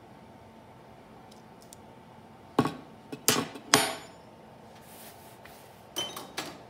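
A 7/16-inch cold-rolled steel rod and metal calipers being set down on a wooden board: three sharp clacks a little before the middle, the last with a short metallic ring, then two lighter knocks near the end.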